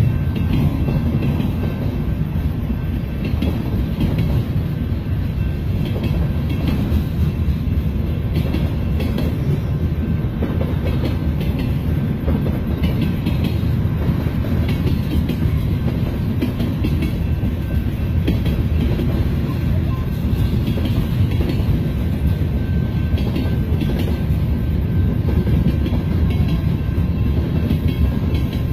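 CN mixed freight train rolling past a grade crossing, a steady low rumble of the cars moving over the rails.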